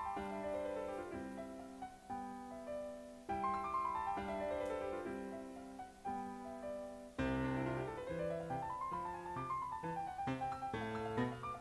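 Solo piano music playing flowing runs of notes that climb and fall in pitch, with fresh chords struck every second or two.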